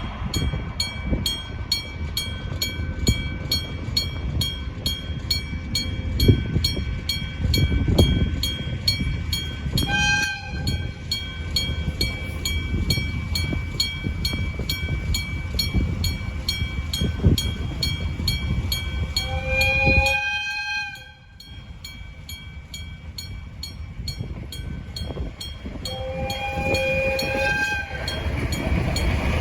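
Electric-bell level crossing alarm ringing in rapid, even strokes, stopping near the end. A train rumbles past with clanking, and its horn sounds three times: briefly, then twice longer.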